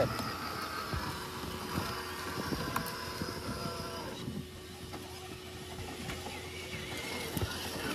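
Electric motors and gear drivetrains of small-scale RC rock crawlers whining steadily as they crawl over mud and leaf litter, with scattered small clicks and crackles from the tyres. The whine drops away about four seconds in as the nearest crawler moves past.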